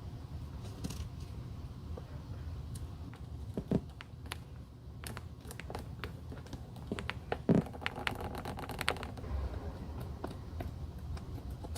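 Small scattered clicks and taps of hand tools and handling on a shoe, with two louder knocks about four and seven and a half seconds in; after the second knock a short steady tone lasts about a second.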